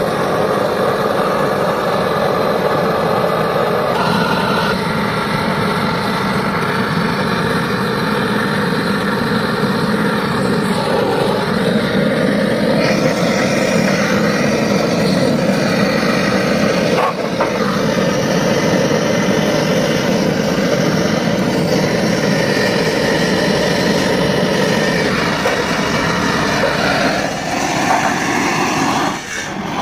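Handheld gas torch flame burning with a steady rushing noise while heating a radiator seam for soldering; the sound shifts abruptly several times.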